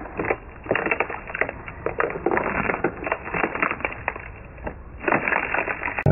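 Snapped wooden skateboard deck handled close to the microphone: irregular crackling, creaking and knocking as the broken halves and their trucks are turned over.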